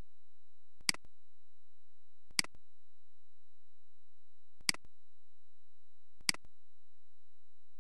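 Four computer mouse clicks, spaced one to two seconds apart, over a faint steady hum.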